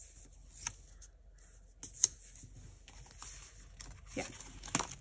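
Sticker sheets and paper being handled: soft rustling with several sharp taps and clicks, the loudest about two seconds in.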